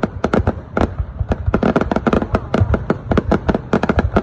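Fireworks going off: a rapid, irregular string of sharp bangs and pops, several a second.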